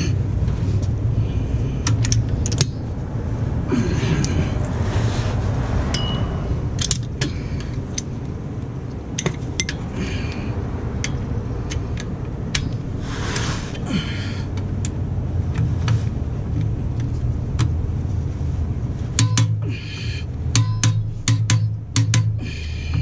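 Ratchet and torque wrench working the starter's mounting bolts: scattered metallic clicks and clinks of socket and tools, with a run of regular ratcheting strokes near the end, over a steady low hum.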